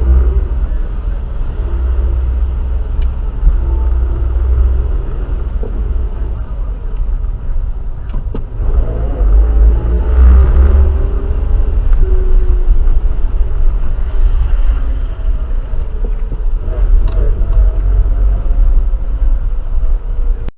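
Car driving: a steady, loud low rumble of engine and road noise that swells briefly about halfway through, then cuts off abruptly at the end.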